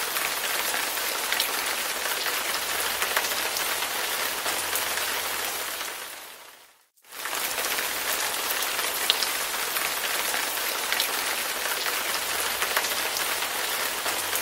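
Steady rain: a dense, even hiss with scattered sharp drop ticks. It fades out to silence about seven seconds in, then fades straight back in.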